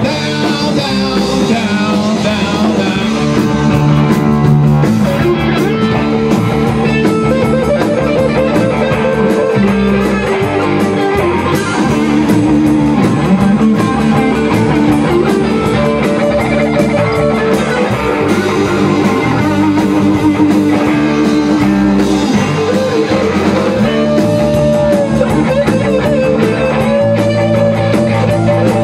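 Rock band playing live: electric guitar, electric bass and a Tama drum kit, loud and steady.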